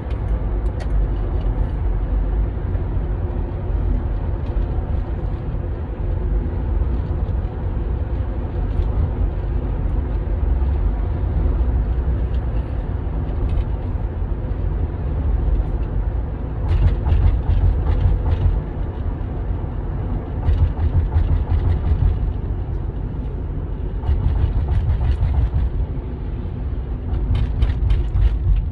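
Ford Edge driving on the road: a steady low rumble of engine and road noise, with clusters of light clicks and rattles several times in the second half.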